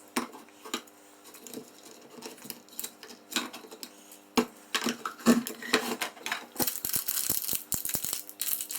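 Hands handling small parts and tools: scattered clicks and taps, then, in the last couple of seconds, a busier run of crinkly rattling.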